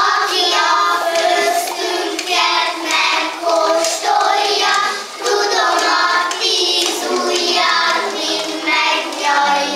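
A group of young children singing together in unison, with sharp taps through the song.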